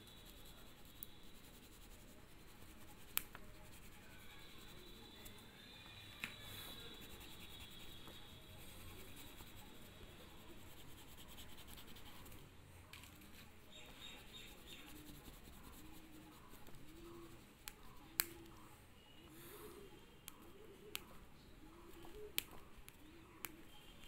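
Oil pastel rubbing and scratching on drawing paper as an area is coloured in, faint, with a few sharp clicks.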